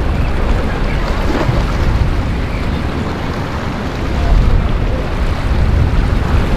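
Wind buffeting the microphone in a steady low rumble, over the rushing of choppy sea water.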